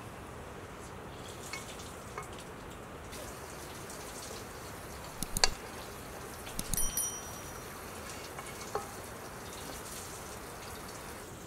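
A few light clinks of a metal cooking pot and utensils as roasted chickens are packed into the pot: a sharp clink about five and a half seconds in and a short ringing metallic clatter about a second later, under a steady hiss.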